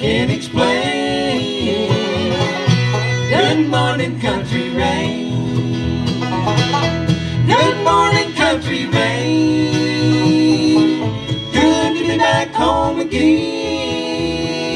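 Bluegrass band playing at full tilt: banjo, acoustic guitar, mandolin, fiddle and upright bass together, with a steady beat.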